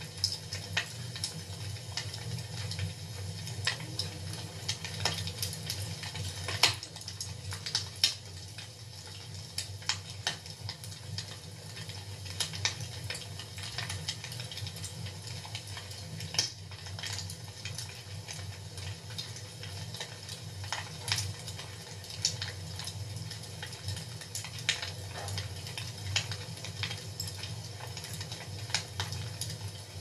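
Wood fire crackling in a fireplace: irregular sharp pops and snaps scattered throughout, the loudest a little after six and eight seconds in, over a steady low rumble.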